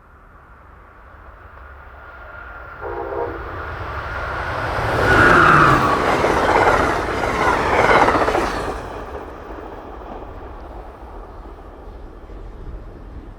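Amtrak passenger train approaching and passing at speed: the rumble builds to a loud rush of wheels and air that peaks about five to eight seconds in, then fades as the train moves away. A short horn note sounds about three seconds in.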